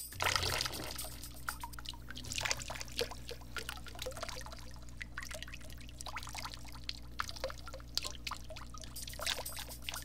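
Water pouring and trickling from a saucepan, with scattered small splashes, over a steady low hum.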